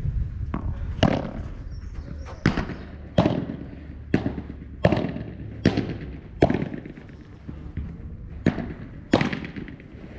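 Padel rally: a padel ball struck back and forth with padel rackets, about ten sharp pops roughly one every three-quarters of a second, each with a brief ringing tail, and a pause of about two seconds a little after halfway.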